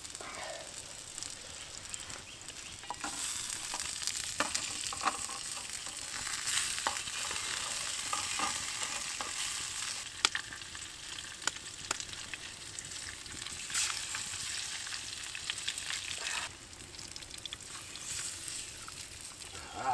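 Scarlet elf cup mushrooms with primrose and wood sorrel sizzling in hot coconut oil in a pan, with crackles and the odd click of stirring. The sizzle grows louder a few seconds in and drops away suddenly near the end.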